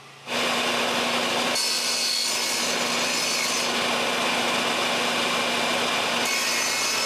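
Power tool cutting away wood from the back of a floor plank to thin it. It starts a moment in and runs steadily, with a constant motor hum under the noise of the cut.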